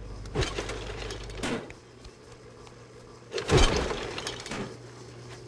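Four sharp mechanical knocks with a clattery edge, the loudest about three and a half seconds in, typical of equipment being put through a rough durability test. A low hum underneath cuts out about a second and a half in.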